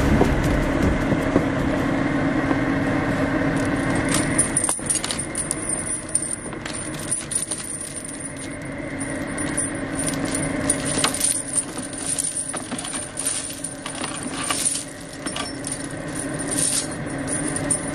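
Steel tyre snow chains clinking and rattling as they are handled and dragged out in the snow, the clinks growing frequent after about four seconds. A truck's diesel engine idles steadily beneath.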